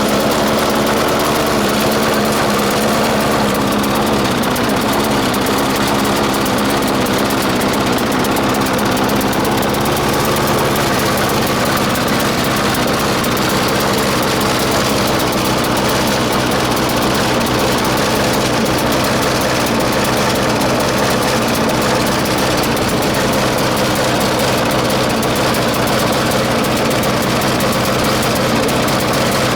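4 HP Briggs & Stratton lawnmower engine running steadily at a raised idle. It runs lean, short of fuel, which the owner says a different spring has been fitted to compensate for.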